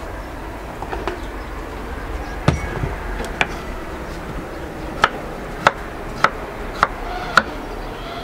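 Kitchen knife dicing a peeled potato on a wooden cutting board: sharp knocks as the blade strikes the board. The knocks are scattered at first, then come steadily about once every 0.6 seconds in the second half.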